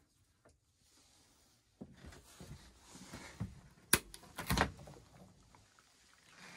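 Dometic camper-van fridge latch clicking open sharply, then a second, longer knock about half a second later as the fridge door is pulled open, with light handling rustle before.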